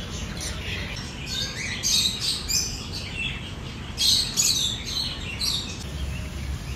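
Small parrots, budgerigars and lovebirds, chirping in short high-pitched bursts, several birds at once, in clusters about a second in, around two seconds, and again around four to five and a half seconds in.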